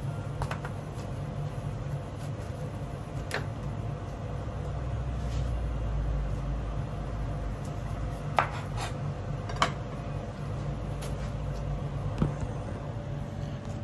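A steady low mechanical hum, swelling in the middle, with a handful of sharp knocks and clicks as a knife and a sushi roll strike a plastic cutting board.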